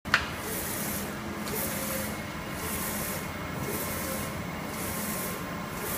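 UV flatbed printer with Epson DX5 print heads running a job, its print-head carriage shuttling back and forth. A high hiss rises and falls about once a second over a steady machine hum, and a sharp click sounds at the very start.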